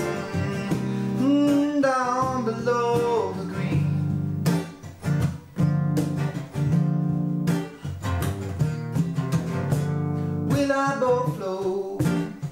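A man singing to his own strummed acoustic guitar. The voice drops out for several seconds in the middle, leaving the guitar strumming alone.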